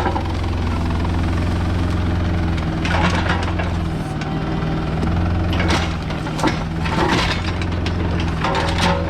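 Diesel engine of heavy land-clearing equipment running steadily with a low hum, with louder bursts of clattering noise about three seconds in, around six to seven seconds, and near the end.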